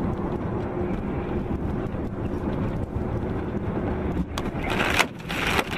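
Steady road and engine noise inside a moving vehicle on a wet road, then near the end a sudden sharp knock and two loud bursts of crashing noise as another vehicle strikes it.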